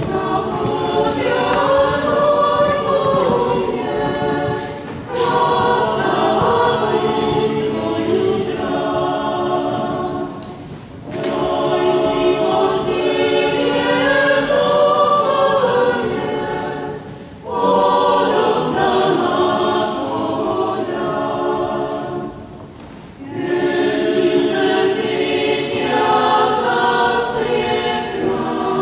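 Many voices singing a hymn together in a church, in long phrases of about six seconds with short breaks between them.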